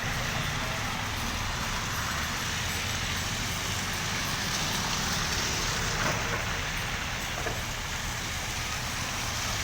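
Steady traffic noise on a rain-soaked street: an even, continuous hiss of vehicles on wet, flooded roads.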